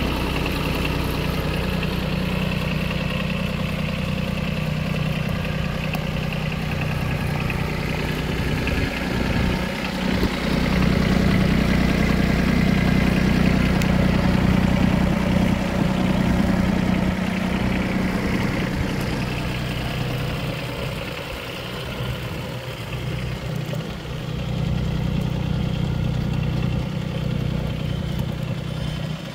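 Hinomoto CX14 compact tractor's diesel engine idling steadily, a little louder for several seconds in the middle.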